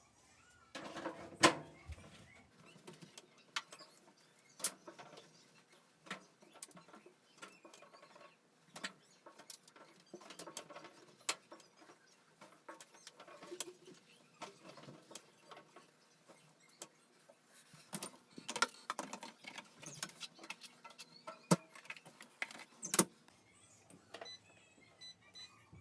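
Household items being handled while tidying a bedroom: irregular small clicks, knocks and rustles, with a sharper knock about a second and a half in and another near the end.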